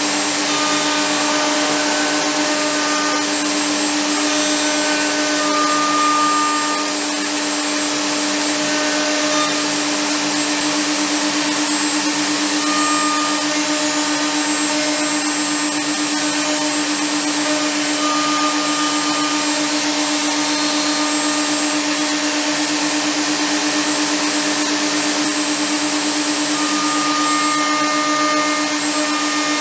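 Table-mounted wood router running steadily at high speed, its bit cutting into a small round-wood piece that is fed across it; one constant pitch over a broad hiss.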